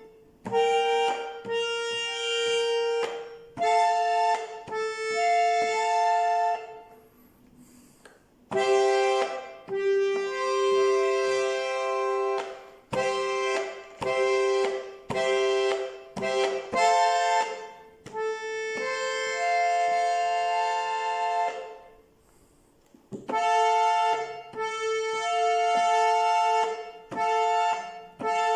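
Bayan (Russian button accordion) playing a melody at slow tempo, in short phrases separated by brief pauses about seven and twenty-two seconds in.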